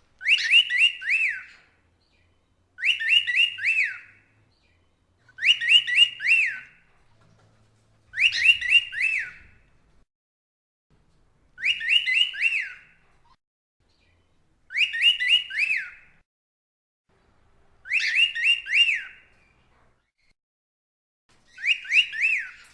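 Cockatiel whistling the same short phrase of three or four quick rising-and-falling notes eight times over, with pauses of a second or two between phrases.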